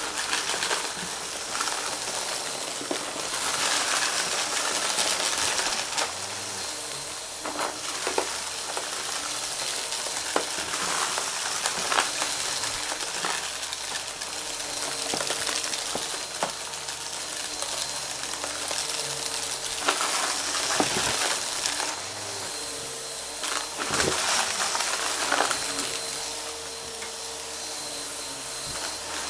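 Vacuum cleaner running over a crunchy debris mix, with a dense crackling as the particles are sucked up and broken, and scattered sharp ticks of pieces hitting the inside of the machine over the steady hum of the motor.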